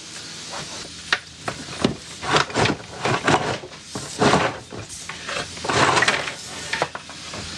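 Bundles of old electrical wire being pulled out of a wooden cabinet, scraping and rubbing against the wood and against each other in irregular strokes.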